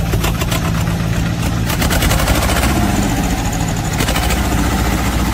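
Diesel tractor engine running steadily.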